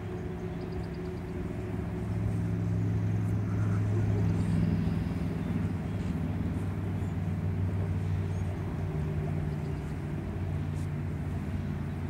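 Low, steady engine hum that grows louder about two seconds in and eases off again near the end.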